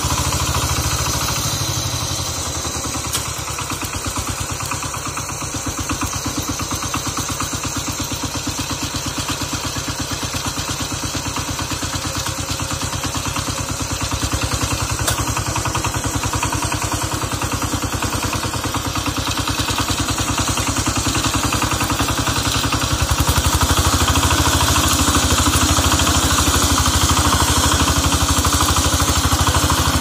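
Kentavr MB 1010DE-6 walk-behind tractor's single-cylinder diesel engine running under load with a steady rapid knock, as the drive wheels spin and dig through snow-covered ground into wet peat. The engine gets louder for the last several seconds.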